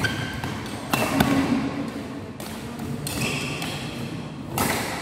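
Badminton rally: rackets striking the shuttlecock in sharp cracks, several around a second in and a hard one near the end, with players' shoes scuffing and squeaking on the court mat.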